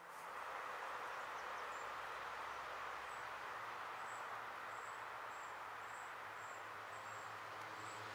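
Steady rushing noise of running river water, with faint short high chirps about twice a second from about three seconds in.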